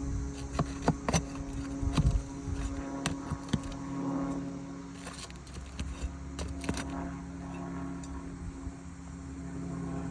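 Scattered sharp clicks and knocks of hand tools working loose roofing nails and asphalt shingles, thickest in the first few seconds and again around the middle. A steady low machine hum runs underneath.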